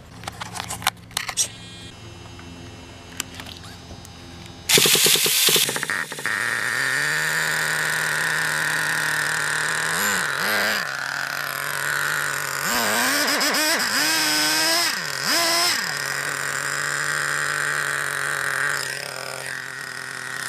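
Small nitro RC car engine catching about five seconds in, then running at a steady idle with a few quick revs up and back down. It is running rich, the fuel mixture still to be adjusted.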